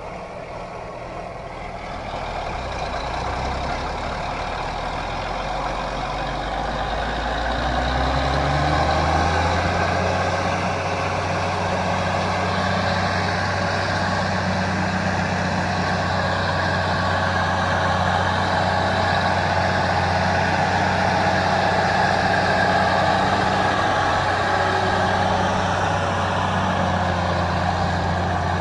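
Heavy vehicle engine rising in speed over the first several seconds, then running steadily at high revs.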